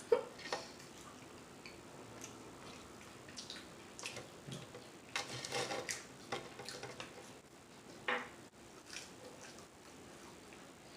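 Faint, wet mouth sounds of a person chewing and smacking on food, with scattered small clicks through the quiet.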